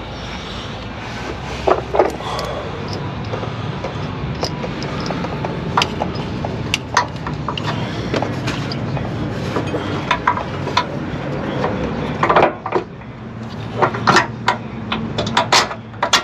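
Scattered clinks and knocks of a wrench and bolts against metal as idler arm bracket bolts are fitted and tightened, coming closer together near the end, over a steady low hum.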